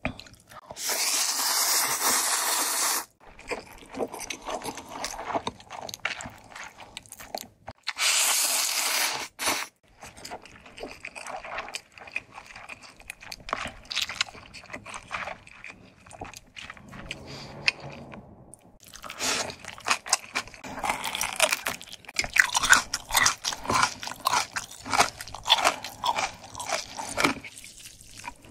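A mouth eating ramyeon close to the microphone: noodles slurped in two long, loud draws, about a second in and again about eight seconds in, with wet chewing between. From about two-thirds of the way through comes a dense run of crisp, crunchy bites and chewing.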